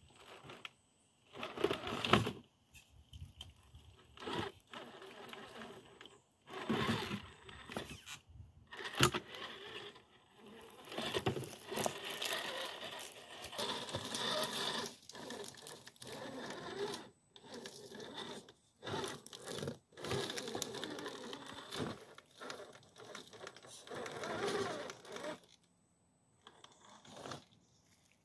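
RC scale crawler (Redcat Gen 8 with a Team Brood 16-turn 5-slot motor) driving in stop-start spurts: the motor and gears whirring while the tyres crunch over dry leaves and scrape on rock, with a few sharp knocks.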